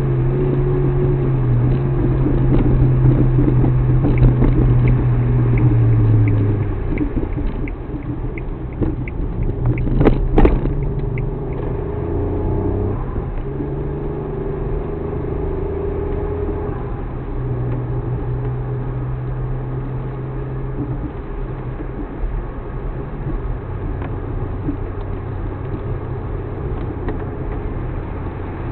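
Suzuki Alto Works (HA36S) engine running while driving, its note rising and falling. A run of light ticks comes about eight to eleven seconds in, with one sharp knock about ten seconds in.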